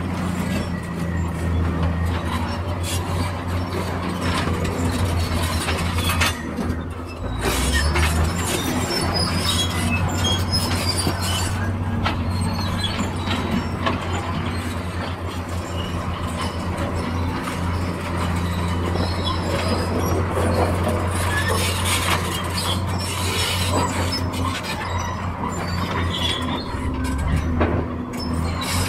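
Crawler excavator's diesel engine running steadily under load, with scattered metallic clanks, knocks and squeaks from the bucket and tracks as it digs earth and loads it into a dump truck.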